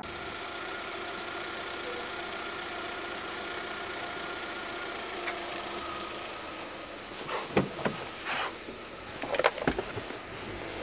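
Holden Cruze 1.6-litre four-cylinder petrol engine idling steadily. A few short knocks and bumps come about two-thirds of the way through.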